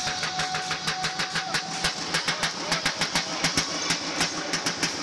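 Basketball bouncing on a sports-hall floor as it is dribbled, along with players' running footfalls: a quick, uneven run of sharp knocks.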